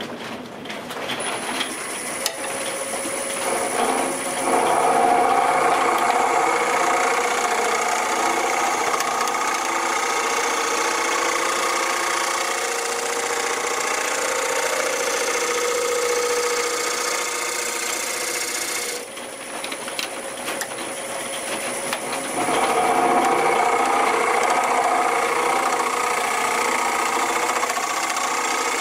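Wood lathe starting about a second in and running, with a round-nose scraper cutting inside a spinning square bowl blank: a steady scraping over the motor's thin high whine. The cutting drops away for a few seconds about two-thirds through, then resumes.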